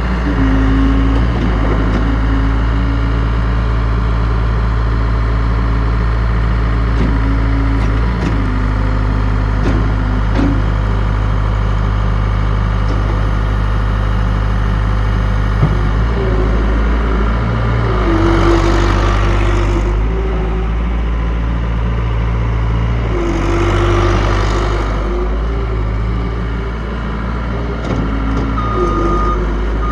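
60XT skid steer loader's engine running steadily, its pitch shifting several times as the machine is worked. There are two hissing surges partway through, and a high beeping starts near the end.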